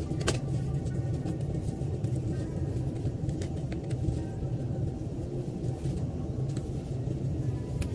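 Steady low rumbling hum, with a few faint clicks over it.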